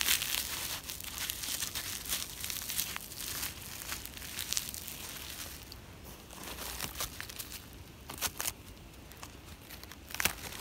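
Dry, fibrous bark being torn and stripped by hand from a dead tree trunk: a run of crackling, crinkling tears and snaps, with the loudest tears at the start and again near the end.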